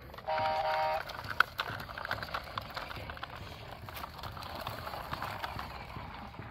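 A battery-powered toy truck gives one short, flat electronic tone as its button is pressed, followed by a sharp click; then only a faint rustling background with scattered light ticks.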